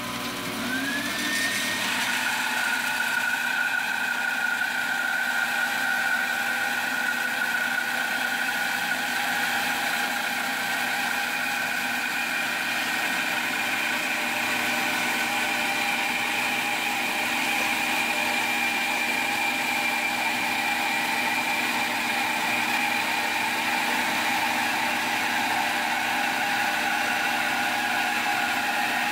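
Bandsaw running and ripping a board lengthwise down the middle, a steady sawing noise with a high whine that rises briefly about a second in and then holds.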